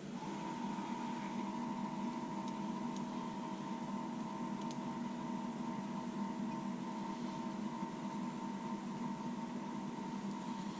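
A steady machine hum of several fixed tones sets in at the start and holds without change, with a few faint ticks over it.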